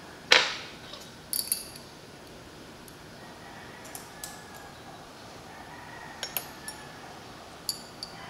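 Laboratory glassware being handled on a bench: one louder knock about a third of a second in, then scattered light clinks of glass test tubes and a reagent bottle.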